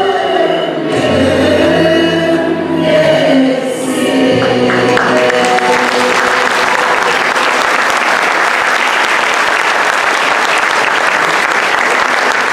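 A Turkish art music choir with string accompaniment sings the held closing notes of a song, which end about five seconds in; the audience then applauds steadily.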